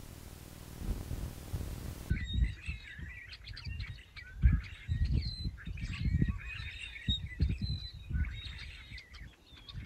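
Birds chirping and twittering, many short overlapping calls, over irregular low rumbling thumps such as wind on a microphone.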